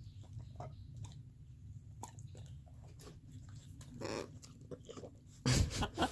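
Blue macaw biting and chewing at a snack-cake wrapper, giving scattered small crunches and crinkling clicks, with a louder rustle near the end.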